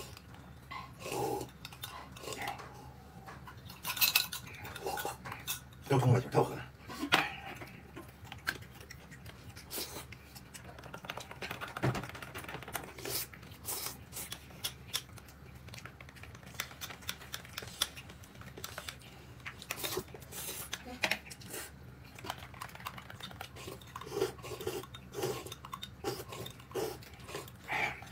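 Dishes and cutlery clinking and knocking as people eat at a table, with many scattered short clicks and a few louder knocks about four and six seconds in.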